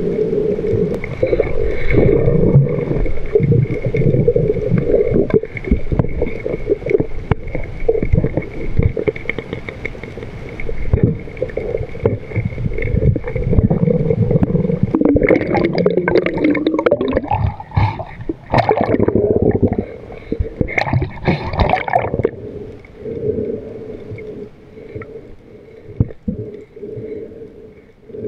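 Underwater sound picked up by a diving camera: a steady droning hum with many crackling clicks, and louder gurgling bursts from about 15 to 22 seconds in.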